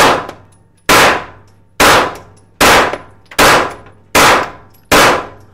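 Seven evenly paced semi-automatic shots from a Smith & Wesson M&P FPC 9mm folding carbine, about one every 0.8 seconds, each echoing briefly in an indoor range.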